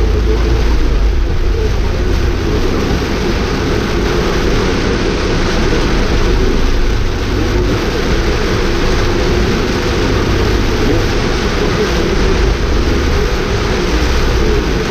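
Steady noise inside a car driving in heavy rain: tyres on the wet road and the engine, with rain on the car.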